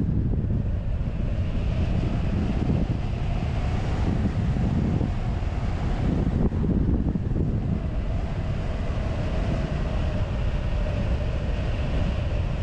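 Airflow rushing over a wing-mounted camera's microphone on a hang glider in flight: a steady low rumble of wind noise.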